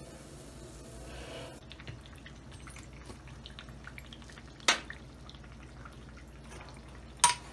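Light sizzling of frying oil at the start, then soft wet dripping and small ticks as fritters are pushed into yogurt with a metal spoon. Two sharp clinks of the spoon against the glass dish, one about five seconds in and one near the end.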